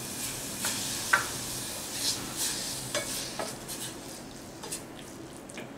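Wooden spatula stirring grated raw mango in a stainless steel pan, with a few irregular scrapes and knocks against the pan over a steady hiss; the strokes thin out in the second half.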